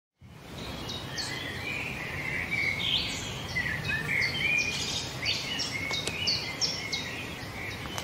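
Wild birds singing in woodland: many short chirps and whistles at different pitches, several birds overlapping, over a steady low background hiss. The sound comes in abruptly just after the start.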